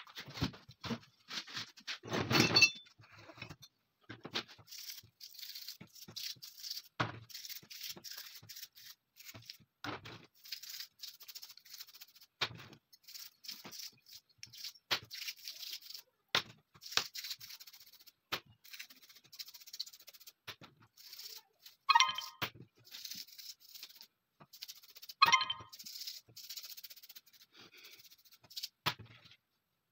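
Small steel parts of a TT pistol being scrubbed with a small brush over a tray of liquid: short scratchy brushing strokes with scattered clicks and light clinks of metal parts. Two louder ringing metal clinks come in the last third.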